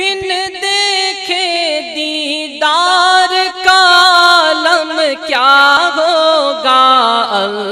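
Islamic devotional singing in naat style: a slow, wordless melodic line with wavering pitch and sliding ornaments.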